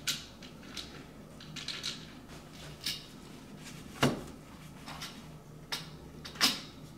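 Scattered clicks and knocks of the Mars Hydro FC8000 grow light's aluminium bars and frame rail being handled and fitted together, the loudest knock about four seconds in and another near the end.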